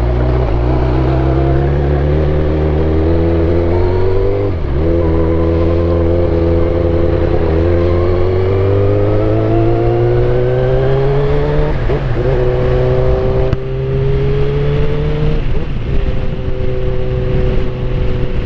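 Suzuki GSX-R1000 K8 inline-four engine running under way, its pitch climbing slowly, with four short dips as it changes gear.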